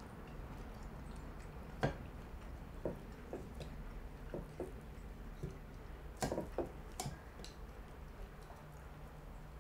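Chopsticks clicking and tapping against bowls and dishes during a meal: scattered light clicks, with a few sharper knocks about two seconds in and again around six and seven seconds, over a low steady hum.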